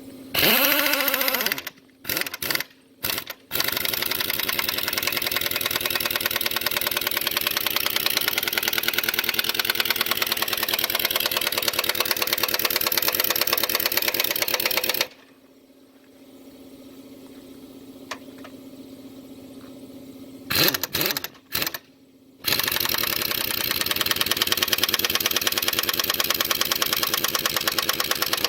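Large air impact wrench hammering away on the plow's bolts in long runs, with a few short blips of the trigger and a pause of about five seconds in the middle. Underneath, an air compressor hums steadily.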